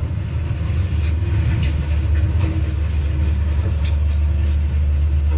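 Earthmoving equipment scraping a driveway: a steady low engine rumble with occasional scrapes and knocks.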